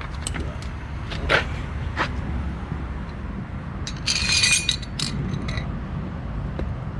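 Tools and an oil pan being handled for an oil change: a few light clinks and knocks, and a short scrape about four seconds in, over a steady low rumble.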